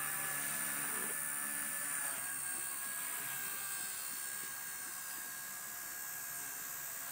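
Blade mCPX micro RC helicopter's electric motors and rotor giving a steady high-pitched whine as it lifts off and flies. The pitch dips slightly about two seconds in, and the sound gets a little quieter in the second half.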